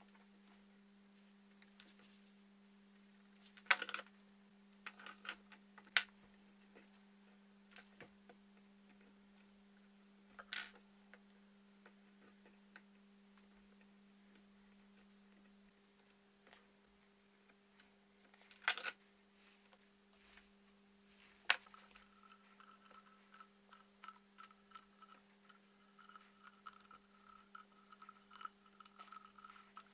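Sparse small clicks and taps of hand-stitching leather clamped in a metal bench vise, as the awl and needles work through the leather, over a steady low hum.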